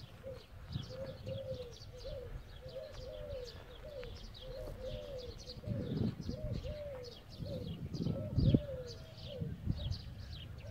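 A dove cooing over and over in short arching phrases, with small songbirds chirping rapidly in the background. A few low rumbles come through, the loudest about eight and a half seconds in.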